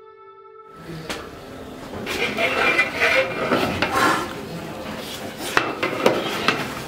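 A long metal ladle stirring and scraping biryani rice in a large aluminium pot, with a few sharp metal-on-metal knocks about two-thirds of the way through.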